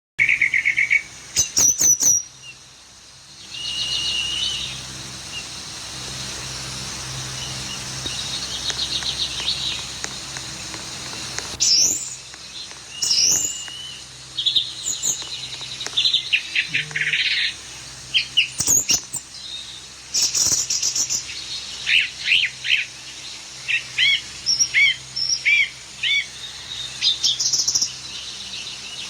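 A bird chirping in many short high calls and trills, with a few sharp, sudden bursts of noise among them.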